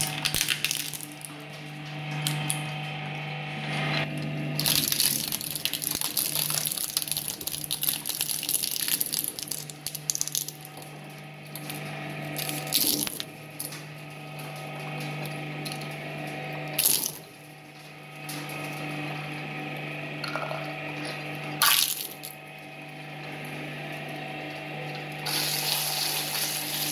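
Twin-shaft shredder running with a steady hum while its steel cutters crunch and crack plastic toys, with several sudden loud cracks as pieces snap and a denser grinding stretch near the end.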